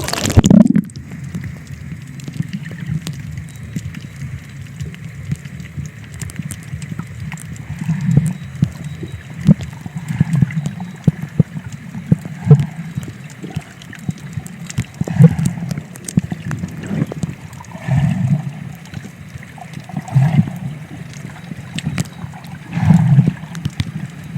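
Seawater sloshing and gurgling, swelling and easing every two to three seconds, with small scattered clicks.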